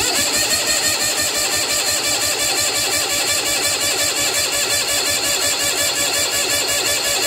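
Bolens QT16 tractor's starter cranking the cold engine with the choke on, a fast, even chugging that goes on without the engine catching.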